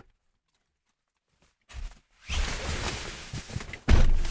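Getting into the driver's seat of a Jeep Grand Cherokee: clothing rustling against the leather seat with soft knocks, then a heavy thump about four seconds in. Near silent for the first second and a half.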